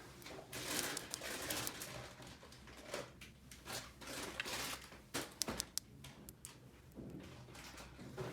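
Small plastic toy pieces and packaging being handled, with irregular rustling and a few sharp light clicks, a quick cluster of them a little past halfway.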